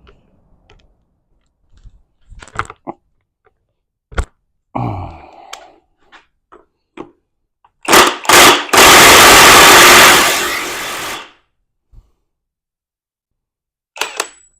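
Impact wrench hammering on the countershaft nut of a Mazda M5R1 manual transmission: two short blips about eight seconds in, then a loud burst of about two seconds, without breaking the nut loose. Before that, light clinks and a clunk of tools being handled.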